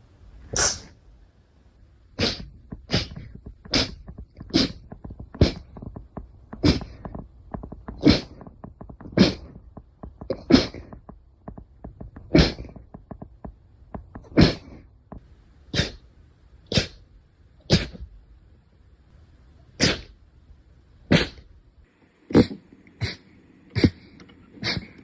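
A long run of short, sharp sneezes, one roughly every second, coming quicker, about twice a second, near the end.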